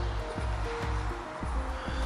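Background music with a steady bass beat and held notes.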